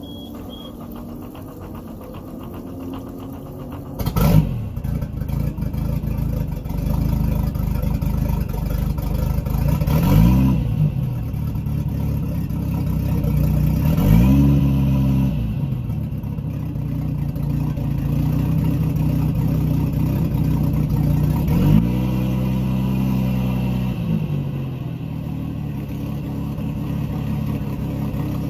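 Regal sterndrive boat's inboard engine starting up, catching suddenly about four seconds in: the season's first start. It is then revved three times, each a rise and fall in pitch, and settles to a steady idle.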